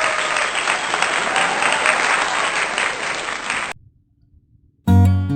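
Crowd applauding and cheering, which cuts off abruptly a little after halfway. After about a second of near silence, strummed acoustic guitar music starts just before the end.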